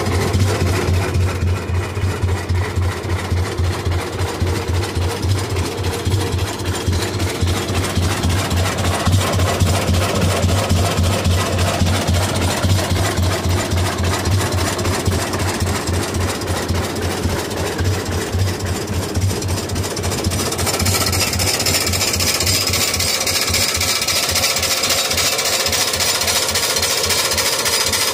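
Rumely OilPull tractor engine running, a rapid, even chugging beat. About twenty seconds in, the sound turns brighter, with more hiss and clatter over the beat.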